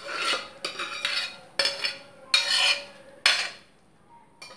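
A metal ladle scraping and knocking against a metal vessel in about five short strokes, as boiled chickpeas and whole moong beans are scraped into a pan of curry; the strokes stop about three and a half seconds in.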